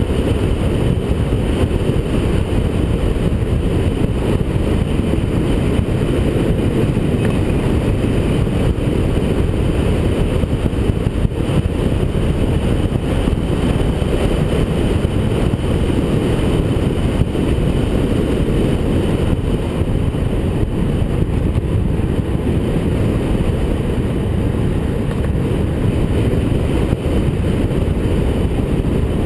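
Loud, steady wind rushing over the microphone of a camera on a road bike descending a mountain pass at speed.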